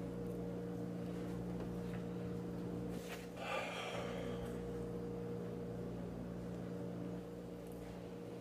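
Steady electrical hum made of several fixed low tones, with a brief breathy rustle about three and a half seconds in.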